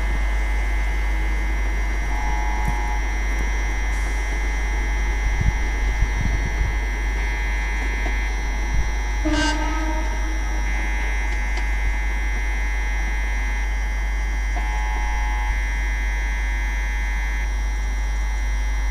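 Steady electrical hum with a constant high whine running underneath, and a brief pitched toot about nine seconds in.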